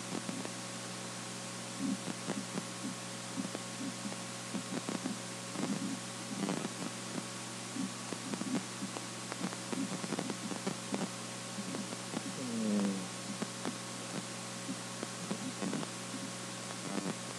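Steady electrical hum and hiss from a home computer recording setup, with faint irregular low bumps and a brief low falling murmur about twelve seconds in.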